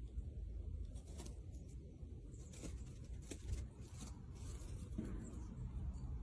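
Scattered dry crunches and scratches from a Eurasian red squirrel foraging close to the microphone in dry pine needles, over a low steady rumble.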